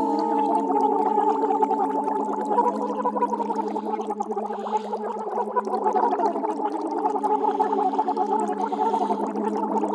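A woman's voice holding several low sung notes together with a fast, bubbling, gargle-like flutter through them, an extended vocal technique.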